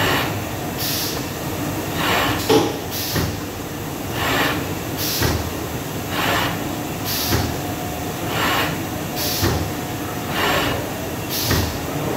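A machine running in a steady rhythm, with a noisy whooshing stroke repeating about once a second over a continuous mechanical background.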